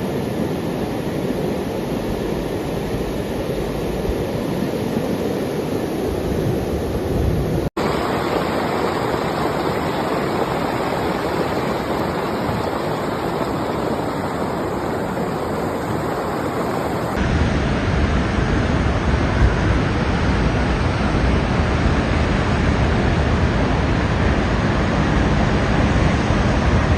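Steady rush of fast-flowing floodwater from an overflowing river, a continuous even roar. It cuts abruptly to a new take about eight seconds in and again about seventeen seconds in, the last take deeper and heavier.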